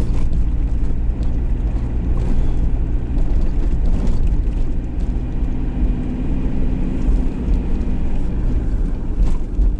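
Cab interior of an Iveco Daily cruising at road speed: steady engine drone and tyre and wind noise.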